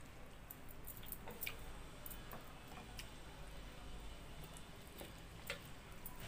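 Quiet hand-eating sounds: chewing and mouth smacks, with scattered small clicks as fingers work rice and fried vegetables in steel dishes, over a low steady hum.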